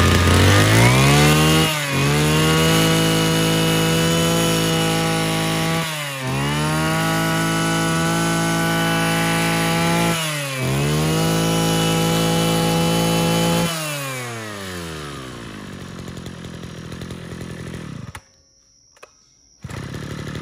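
Mitsubishi TL33 33cc two-stroke brush cutter engine revving up and held at high speed, a steady high buzz that dips briefly and recovers three times. It then winds down slowly, falling in pitch, and cuts out near the end.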